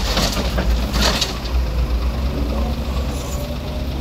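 Doosan crawler excavator's diesel engine running steadily as it dumps a bucket of soil and stones into a steel dump-truck bed; the load pours out in two rushes about a second apart near the start, then only the engine carries on.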